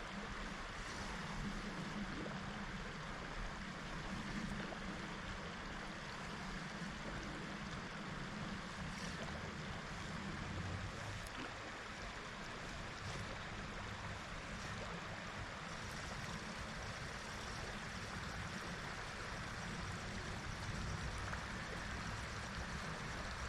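Steady rushing of river water flowing, with a few faint ticks over it.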